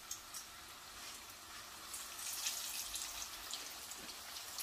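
Faint sizzling and crackling of an aloo paratha cooking in a little oil on a hot pan. The pops grow thicker about two seconds in.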